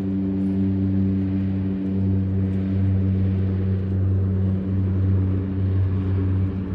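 Seaplane's propeller engine running at a steady drone during its takeoff.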